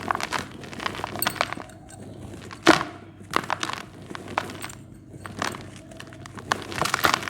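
Dry white cement being crumbled, with irregular gritty crunches and cracks and one sharp crack nearly three seconds in.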